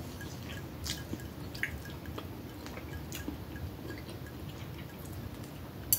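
Sips and swallows of orange soda from a glass, with faint clicks and one sharper click just before the end.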